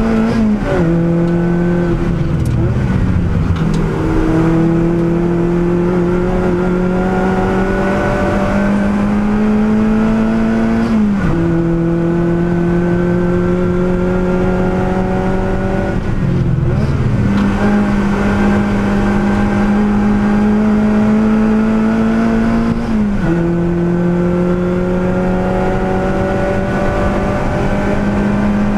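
Lotus Elise Cup R S3's engine under hard acceleration, heard from inside the cabin. Its pitch climbs slowly through long pulls and drops sharply at each gear change. These drops come about half a second in, around 3 seconds, 11 seconds, 17 seconds and 23 seconds.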